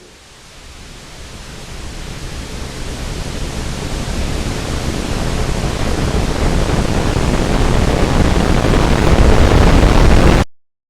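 A rushing, static-like noise, heaviest in the low end, swells steadily louder for about ten seconds and then cuts off abruptly into dead silence.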